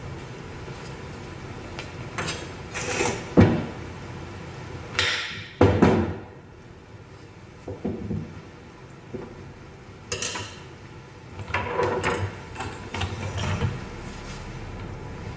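Irregular knocks and clatter of kitchen tools being handled on a wooden tabletop, with a kitchen knife cutting through a raw carrot onto the table.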